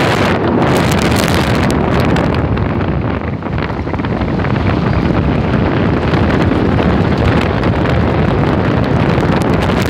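Wind buffeting a phone's microphone held out the window of a fast-moving car on a dirt road, a loud steady rush with the car's road noise underneath.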